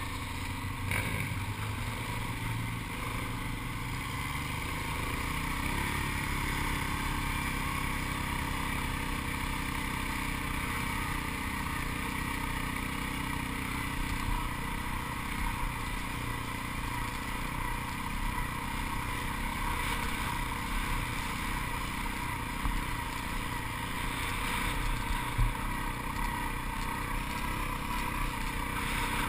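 ATV engine running steadily under way on a sand trail, with one brief louder thump near the end.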